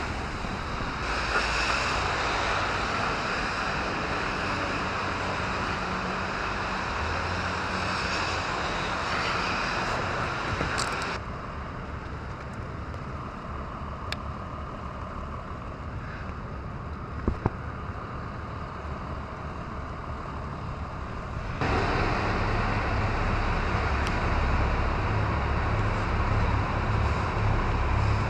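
Road traffic: a steady rush of vehicle and tyre noise with a low engine rumble. The sound changes abruptly twice, quieter about eleven seconds in and louder with a deeper rumble about twenty-one seconds in.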